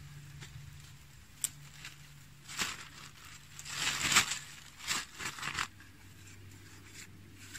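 Rustling and crunching of undergrowth and dry leaves in several short, irregular bursts, loudest a little past the middle, with one sharp click about a second and a half in.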